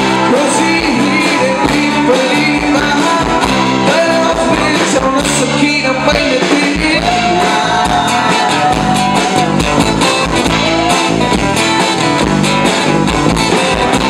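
A song with a singing voice over a full band.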